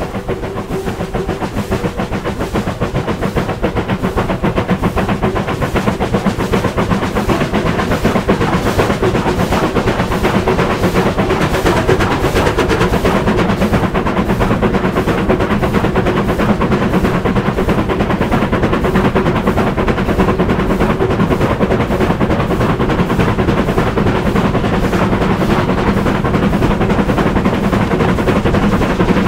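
Exhaust of the three-cylinder Bulleid Pacific steam locomotive 34053 Sir Keith Park working hard up a steep gradient: a rapid, even run of exhaust beats that quicken and grow a little louder as the engine gathers speed.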